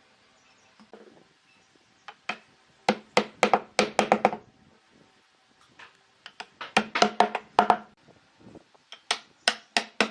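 Rapid knocking blows on wood in three bursts of about six to eight strikes each, each blow ringing briefly, like a hammer driving into a wooden workpiece.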